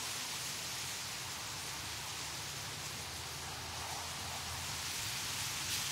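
Wind blowing through a reed bed, the stems and leaves rustling in a steady hiss.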